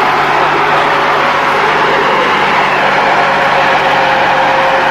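Compact farm tractor's diesel engine running steadily under load, hauling a loaded trailer up a steep slope; a constant-pitch engine drone with no change in revs.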